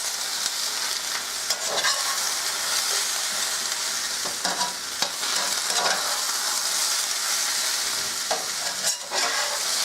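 Potatoes, onions and sliced smoked sausage sizzling in oil in a cast-iron skillet, with a utensil scraping through them several times as they are stirred.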